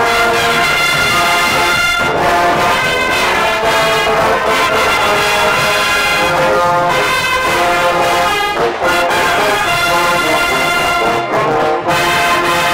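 A marching band's brass and saxophones playing a loud tune in sustained, changing chords, heard from among the players, with a few brief breaks between phrases.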